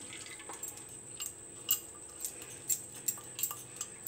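A metal spoon tapping and scraping against a glass bowl as thick yogurt-spice paste is scraped out into a pot: a string of light, irregular clicks.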